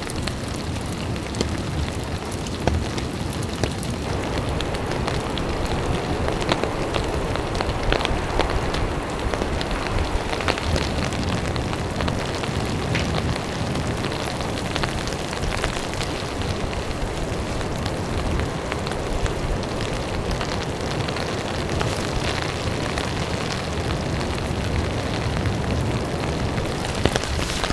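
Steady rain falling, with many separate drop taps scattered through it.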